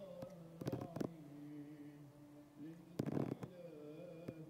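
A voice chanting in long, slowly wavering held notes in the background. A few short clicks come about a second in, and a brief louder noisy burst about three seconds in.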